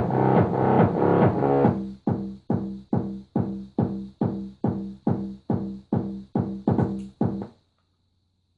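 Electronic bass-test music played at full volume through a counterfeit JBL Flip 3 Bluetooth speaker, picked up with heavy distortion. The dense track gives way about two seconds in to a run of separate bass pulses, about two and a half a second, then stops abruptly near the end.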